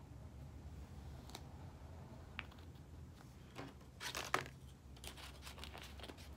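Faint handling sounds of decorative washi tape being peeled and applied along a planner page, with crinkles from its plastic-and-card packaging. A few scattered clicks lead to a louder cluster of crackles and a sharp click about four seconds in, then lighter crackling.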